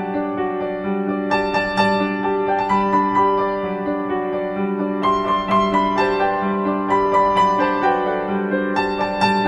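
Background music: a gentle piano melody over steady, sustained chords.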